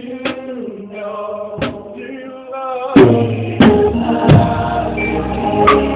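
Gospel praise music: voices singing over light percussion hits, then about three seconds in a fuller, louder band comes in with drum strikes, a deep bass and held chords.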